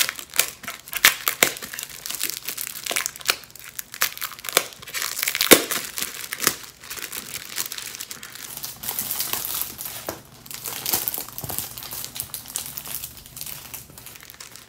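Clear plastic packaging crinkling and crackling as a rolled blackboard sheet is unwrapped and pulled out of it, with irregular sharp crackles, the loudest about five and a half seconds in.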